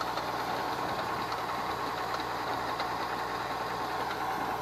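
Farm machinery engine running steadily, with an even mechanical drone and light ticking.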